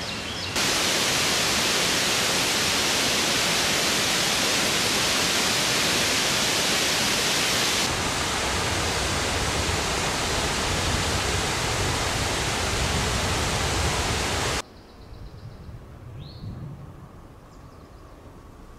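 Steady, loud rushing noise that starts abruptly and cuts off suddenly a few seconds before the end. Afterwards there is faint outdoor background with two short rising bird chirps.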